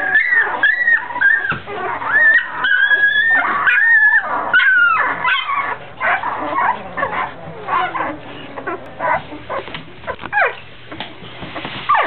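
Nine-day-old Labrador puppies squealing and whimpering: a quick string of high, wavering cries for the first half, then sparser cries.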